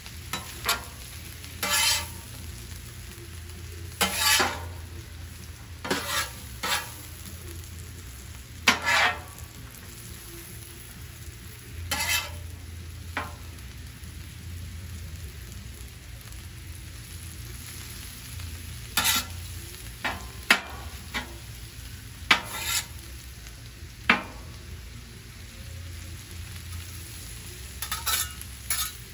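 Chopped cabbage frying on a Blackstone flat-top griddle while a metal spatula turns it, a steady sizzle under sharp scrapes and clacks of the spatula on the griddle top every one to three seconds.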